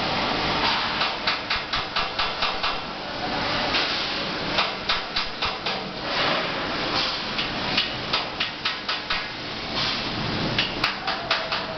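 Rapid sharp metallic strikes in four runs, about four or five a second, with short pauses between runs, over a steady workshop hum.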